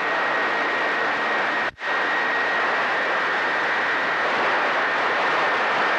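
CB radio receiver on channel 28 giving out loud, steady static hiss with a thin steady whistle running through it. The hiss breaks off for a moment about two seconds in and comes straight back.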